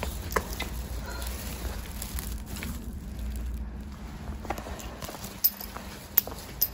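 Handling noise from a hand-held phone camera being carried, a steady low rumble, with footsteps and scattered light clicks and knocks at irregular moments.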